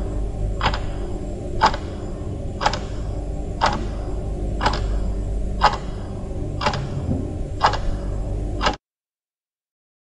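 Big old clock ticking about once a second over a steady low hum. The recording stops abruptly near the end.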